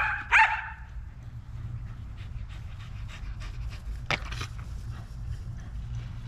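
A dog barking twice, high and sharp, about half a second apart, then panting softly, with one more short sharp sound about four seconds in.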